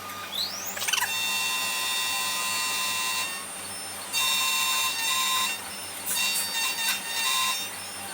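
Xhorse Dolphin XP-005 key cutting machine cutting a key. A rising whine in the first second as the cutter spins up, then a high-pitched machine whine that stops and starts several times as the cut goes on.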